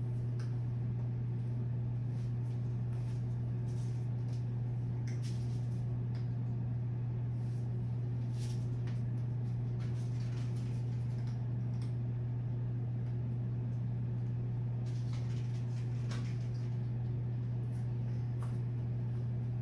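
Steady low electrical or ventilation hum of room tone, with a few faint short noises scattered through it.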